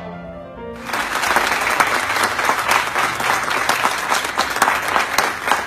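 A violin and piano piece ends on its final held notes, and less than a second in the audience breaks into loud applause, dense with sharp individual claps.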